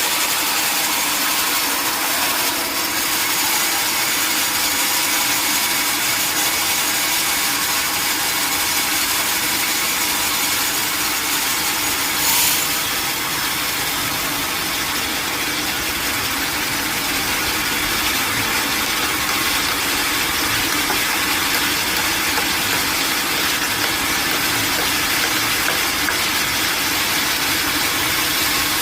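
Sawmill saw and machinery running steadily, with one short sharp knock about twelve seconds in.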